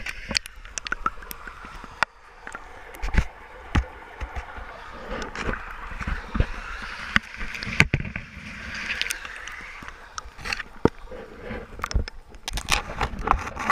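Handling noise from a camera covered by clothing: fabric rubbing and rustling over the microphone, with irregular sharp knocks and bumps.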